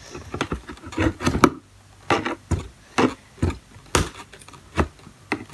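Cardboard box being worked open by hand: a string of irregular sharp taps, scratches and short scrapes on the cardboard, the loudest about one and a half seconds in and again about four seconds in.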